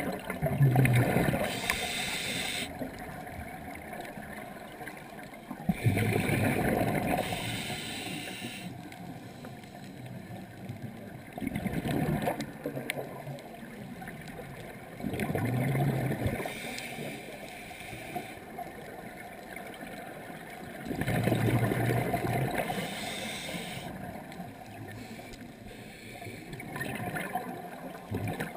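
Scuba diver breathing through a regulator underwater: a gurgling rush of exhaled bubbles about every five seconds, each breath cycle including a short high hiss of inhaled air.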